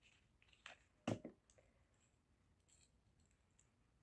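Faint handling sounds of a wristwatch: a few soft clicks and rustles in the first second and a half, the loudest just after one second.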